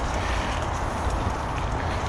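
Carrera Vengeance mountain bike being ridden: steady tyre and rattling ride noise under a heavy rumble of wind buffeting the microphone.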